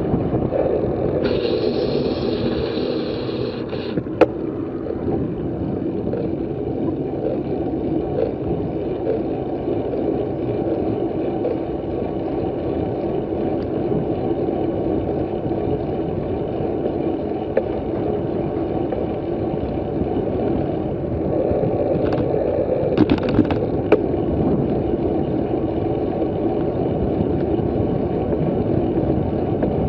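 Steady rushing wind buffeting a bike-mounted camera's microphone while cycling at about 25 km/h, mixed with tyre and road noise. A brief higher hiss comes about a second in, and a few sharp clicks and rattles come around four seconds in and again a little over twenty seconds in.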